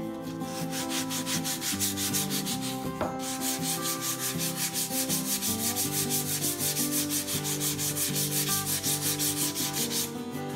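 Hand sanding the edges of thin hardboard (pressed fibreboard) door panels with a small folded sheet of fine sandpaper: quick, even rubbing strokes, about five a second, stopping shortly before the end.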